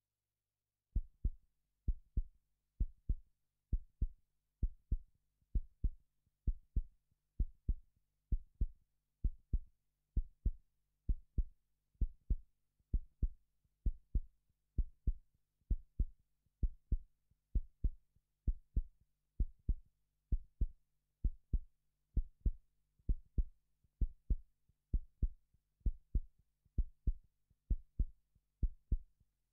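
Heartbeat sound effect: a steady lub-dub of paired low thumps, about one beat every 0.9 seconds (roughly 65 a minute), starting about a second in.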